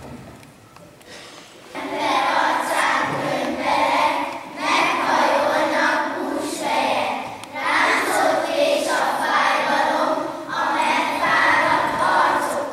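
A group of children singing together, coming in about two seconds in after a brief lull and carrying on in phrases.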